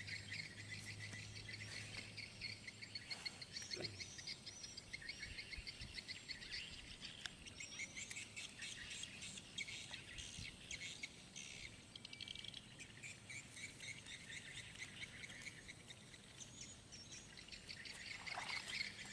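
Lakeside ambience of rapid, high-pitched chirping and trilling from birds and insects, steady and fairly faint.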